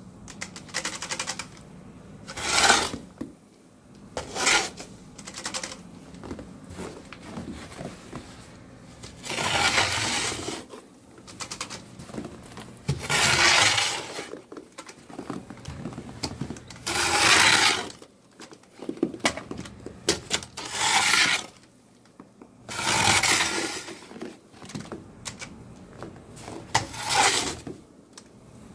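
Snow shovel with a plastic blade scraping and pushing through snow along a balcony floor, in about eight strokes of a second or so each, a few seconds apart, with lighter scuffing between them.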